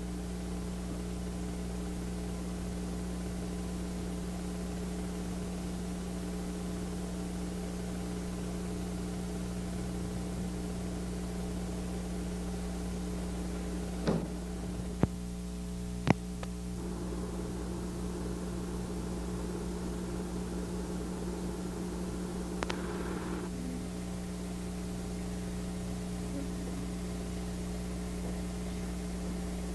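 Steady electrical mains hum with hiss on an old film soundtrack, with three short sharp clicks around the middle.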